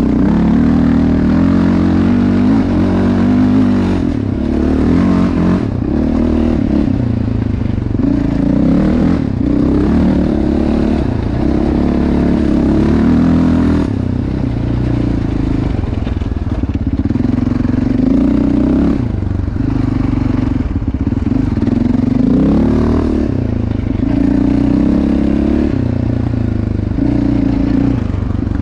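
2021 Yamaha Raptor 700R SE's single-cylinder four-stroke engine, fitted with a Hot Cam Stage 3 camshaft and a Yoshimura RS-4 exhaust, running loud and revving. Its pitch climbs and drops back several times.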